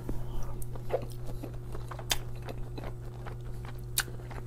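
A person chewing a big mouthful of cheesy spaghetti with pepperoni close to a clip-on microphone: small, irregular wet smacks and clicks, with a sharper click about two seconds in and another near the end. A steady low electrical hum lies under it.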